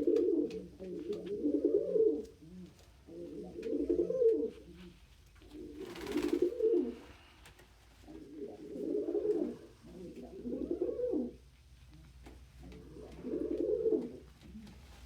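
Domestic pigeon cooing, repeated low coo phrases of about a second each, the courting coo of a male wooing a hen. A brief rustle about six seconds in.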